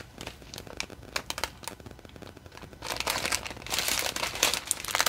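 Small clear plastic zip bags of rhinestones crinkling as they are handled. Scattered light crackles at first, growing thicker and louder about three seconds in.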